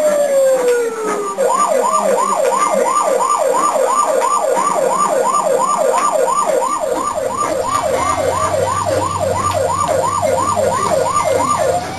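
Electronic emergency-vehicle siren: a slow falling wail, then, about a second and a half in, it switches to a fast rising yelp, about three sweeps a second, and near the end goes back to the slow wail. A low steady hum joins about halfway through.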